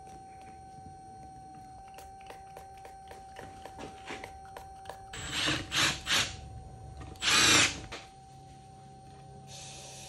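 Cordless drill driving the bolts of an ATV beadlock wheel's ring: three quick bursts, then a longer, louder run. Near the end a steady air hiss starts.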